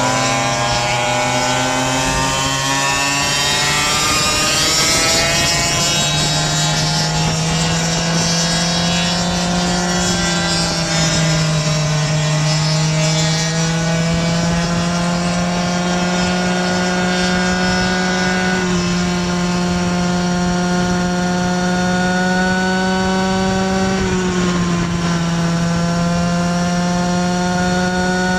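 Go-ped scooter's small two-stroke engine revving hard under way, its pitch climbing over the first few seconds, then holding high and steady with a few slight dips as the throttle eases.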